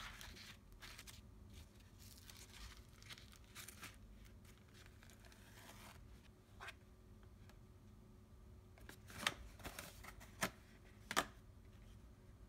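Soft rustling and tearing of paper towel being handled over the chicken livers, then a few short sharp taps and rustles from a cardboard Ziploc bag box being handled in the last few seconds, the loudest sounds here.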